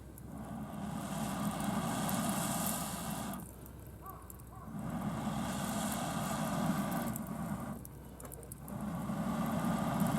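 Three long puffs of rushing air, each about three seconds with a short pause between, blown into a freshly lit wood stove fire. A light crackle of burning wood runs underneath.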